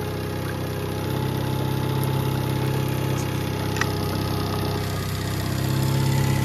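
Yamaha 9.9 hp four-stroke outboard running steadily at idle in a test barrel of water, on its newly fitted water-pump impeller.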